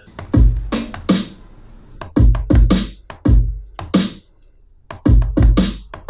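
Electronic beat built from sampled sounds and played on a pad sampler: deep thuds, each joined by a sharp, hissy hit, with a short gap past the middle.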